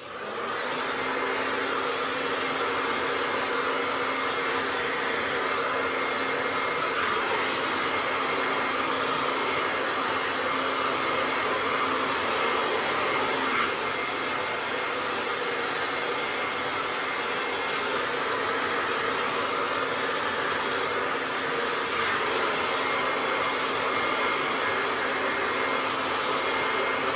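Handheld hair dryer switched on and running steadily, a constant rush of blown air with a faint even whine underneath.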